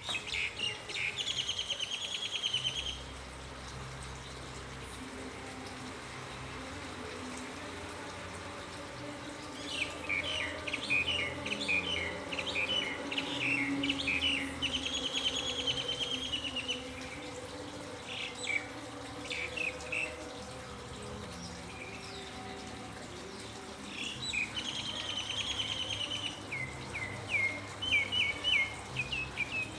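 Small songbirds singing in bouts of rapid, high trills and chirps, near the start, through the middle and again toward the end, over a faint steady background hum.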